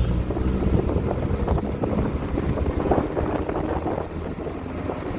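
Car engine and road noise heard from inside the cabin while driving, with wind buffeting the microphone.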